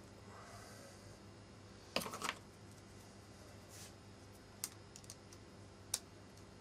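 Light metal clicks and taps from the parts of a Cold Steel Ti-Lite folding knife being handled and fitted back together as it is reassembled after oiling. A quick cluster of clicks comes about two seconds in, then single clicks follow every second or so.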